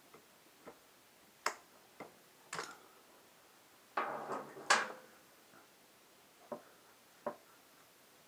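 Scattered sharp clicks and knocks of an oil filter wrench and a loosened motorcycle oil filter being handled, with a short rattling, scraping cluster about four seconds in.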